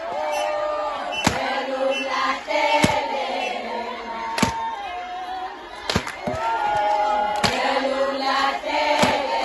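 A group of voices singing together in chorus, with a sharp beat about every one and a half seconds.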